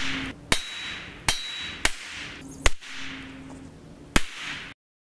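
Five 9mm pistol shots at uneven intervals, each a sharp crack followed by a short echoing tail.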